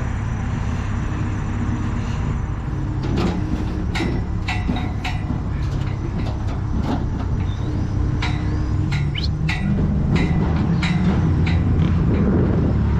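Crane engine running steadily under load, speeding up about ten seconds in. Irregular sharp metallic clicks and clanks with a short ring are scattered through it.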